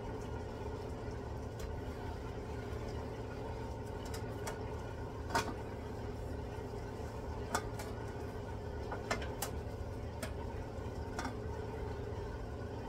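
Covered pan of squid and string beans simmering on an electric coil burner, steam escaping under the lid: a steady noise with a handful of short, sharp pops scattered through it, the loudest about five seconds in.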